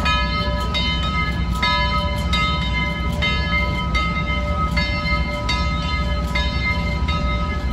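The bell of Southern 2-8-2 Mikado steam locomotive No. 4501 ringing steadily, struck a little faster than once a second, over a low steady rumble.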